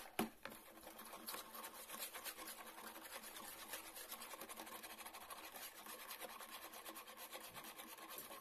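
Wire whisk beating egg yolks, sugar and vegetable oil in a plastic bowl: rapid, steady scraping and swishing strokes. There is a sharp knock just after the start.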